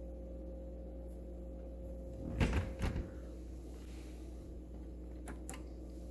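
A door being moved, with two knocks about two and a half seconds in, then two light clicks later on, over a steady low hum.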